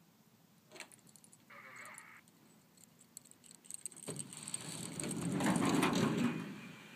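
Schweizer SGS 2-33 glider starting its winch-launch ground roll on grass: a rattling rumble of the wheel and airframe that starts suddenly about four seconds in, grows louder and fades as the glider accelerates away. A few light clicks and a brief hiss come before it.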